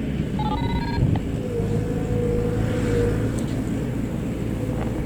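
A motor vehicle's engine running steadily close by, a low rumble, with a short run of stepped electronic tones about half a second in.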